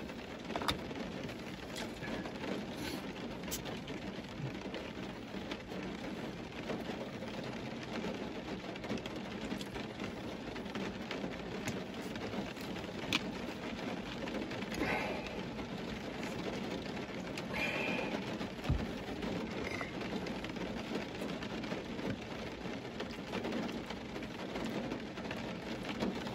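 Steady hiss inside a car cabin, with a few faint clicks and soft rustles of something being handled.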